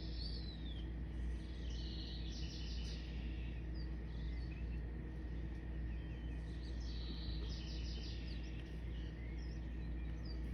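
Birds singing outdoors: a songbird repeats a short high song phrase about every five seconds, with scattered short chirps between. A steady low rumble runs underneath.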